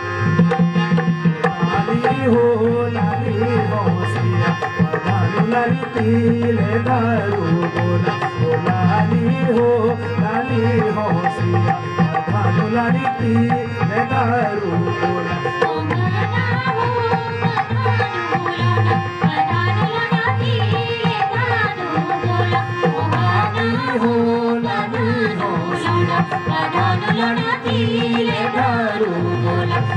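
Uttarakhandi (Pahari) folk dance music playing without words, with percussion keeping a repeating rhythm under a melody.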